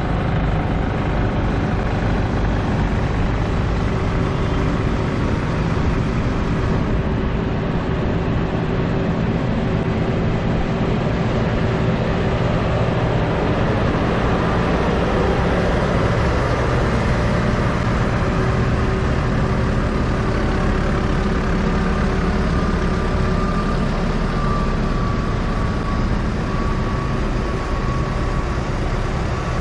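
Diesel tractor engines running steadily as light-decorated tractors drive past one after another, with one drawing close around halfway through.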